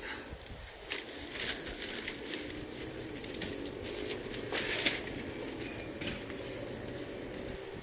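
Hand-held red abrasive pad rubbed over a car's painted steel door panel: irregular scratchy rubbing strokes, sanding the paint as prep for refinishing.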